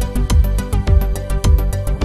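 Electronic synthesizer dance music with a steady beat: quick, even ticking percussion over a pulsing synth bass and held synth notes.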